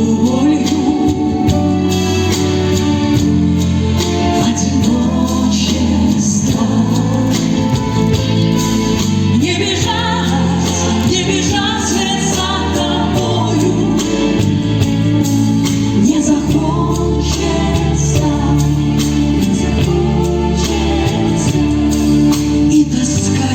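Music of a pop song from a full band with a bass line; a wavering melody line comes in about ten seconds in.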